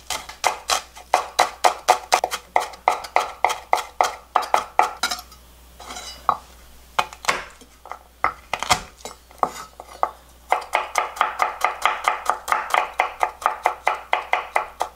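Kitchen knife chopping on a wooden cutting board in quick, even strokes of about four or five a second, first finely cutting green onion, then, after a pause of a few seconds with a few scattered knocks, mincing garlic.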